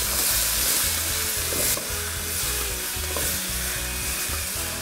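Chopped mixed fruit frying in lard in a clay pot, sizzling steadily while a wooden spoon stirs it.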